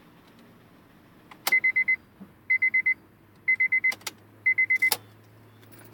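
A car's electronic warning chime beeping: four bursts of about five quick high beeps, one burst a second, with a few sharp clicks among them.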